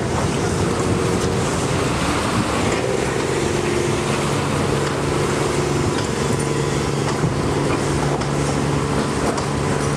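Fishing boat's inboard engine running steadily, a constant hum with its propeller churning the water at the stern.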